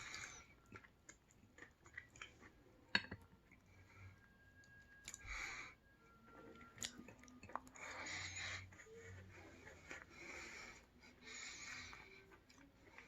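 A person chewing sushi close to the microphone, with soft wet mouth sounds and short breaths through the nose. A single sharp click, the loudest sound, comes about three seconds in.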